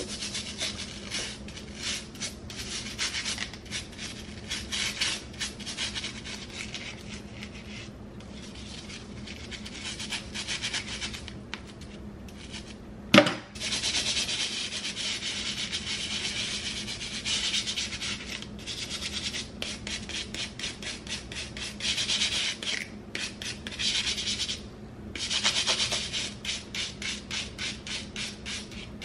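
A small stiff-bristled brush scrubbing a wet plastic wide-tooth comb in quick back-and-forth strokes, the bristles scratching across the teeth, with a few short pauses. One sharp knock about halfway through.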